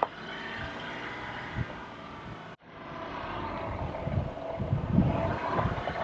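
Safari vehicle's engine running at crawling speed, a steady drone that grows louder in the second half, with some low bumps. The sound cuts out for an instant about halfway through.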